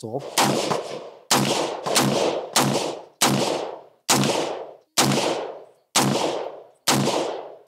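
AR-15 pistol with a 7.5-inch barrel firing .223 Remington 55-grain rounds in steady semi-automatic fire: about nine shots, a little under a second apart, each trailing off in a short echo.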